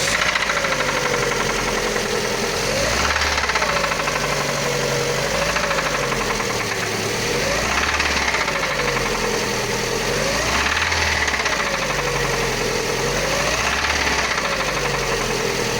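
Lada Largus VAZ-21129 16-valve engine running with a knock, its revs rising and falling about every two and a half seconds. The engine has only 4,200 km on it, and the knock is a sound the mechanic calls scary ("страшные").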